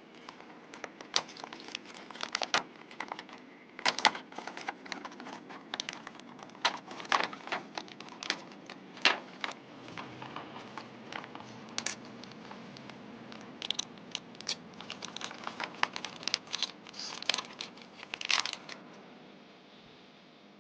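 Doll packaging being handled and opened by hand: irregular crinkling, tearing and sharp crackles.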